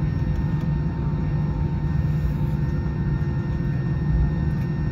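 Steady low engine rumble and hum heard from inside a vehicle, with a constant low drone and no changes in speed or pitch.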